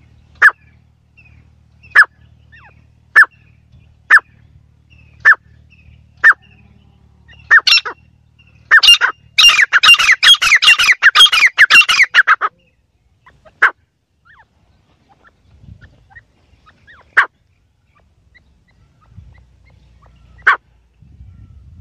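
Teetar (francolin) calling: sharp single call notes about one a second, then a loud, fast run of many notes lasting about four seconds, then a few single calls spaced several seconds apart. A faint low hum lies under the first few seconds.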